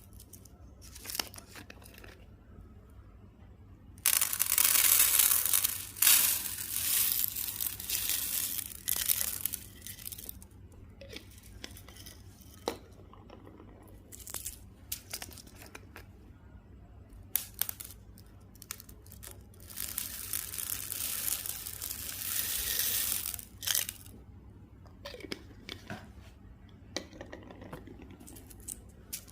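Plastic candy wrappers being torn open and crinkled, in a few long loud rips with scattered clicks and quieter rustling between.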